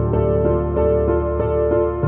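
Background music: a soft, new-age style keyboard piece, with notes changing about three times a second over a held bass.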